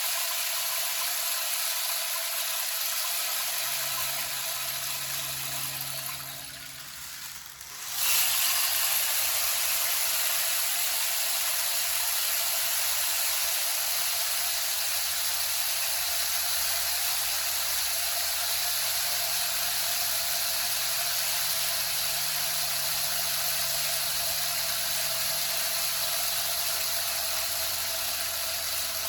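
Rain stick: a steady rushing patter of pellets falling through the tube. It dies away about six seconds in, then starts again suddenly about eight seconds in and runs on evenly.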